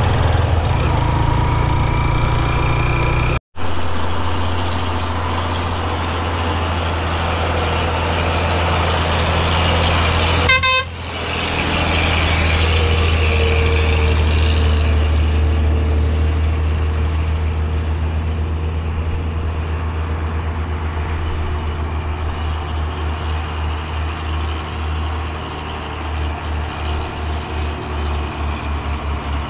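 Ride-along road noise from a moving motorbike: a steady low rumble of engine and wind, with heavy truck traffic around it. There is a short horn toot about a third of the way in, and the rumble starts to pulse near the end.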